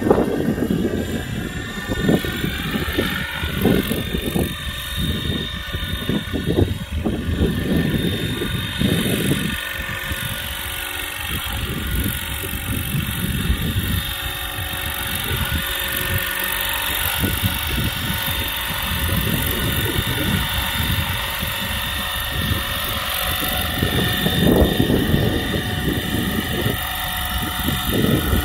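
Radio-controlled scale model UH-1 Huey helicopter flying and then hovering low: the steady whine of its motor and rotor, its pitch shifting in the first few seconds. Wind buffets the microphone, heaviest in the first ten seconds.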